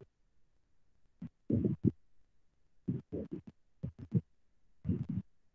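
Short bursts of indistinct, muffled speech over an online call, with dead silence between them.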